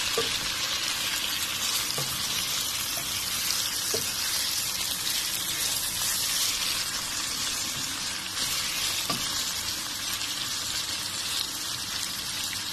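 Chicken pieces sizzling steadily in hot oil with ginger, onion and garlic in a frying pan as they are stirred, with a few light clicks of the spatula against the pan.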